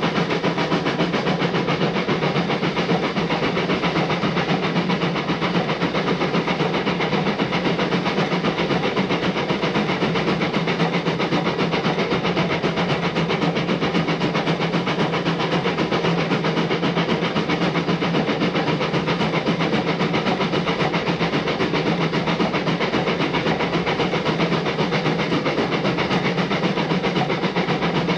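Narrow-gauge steam locomotive running along the line: a steady hiss of steam over the rumble of the train on the rails.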